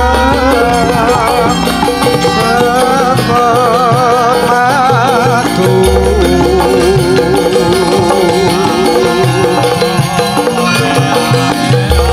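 Javanese gamelan music with a wavering melody line on top, and a deep low note that comes in near the start, about six seconds in and again near the end.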